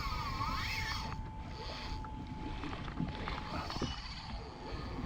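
Water and wind noise around a fishing kayak, with a few light knocks. A faint steady high whine stops about three-quarters of the way through.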